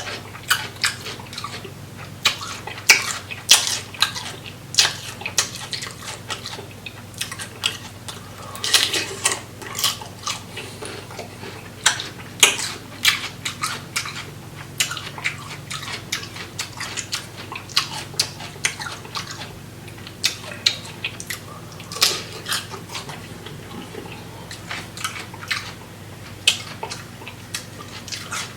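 Close-up mukbang eating of a seafood boil: wet smacking, sucking and chewing of sauced shrimp and crab, with many short sharp clicks and cracks.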